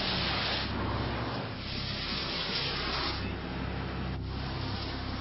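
Smart car running at high speed on a wet track: a rushing hiss of tyre spray and wind over a low, steady engine drone, swelling and easing a few times.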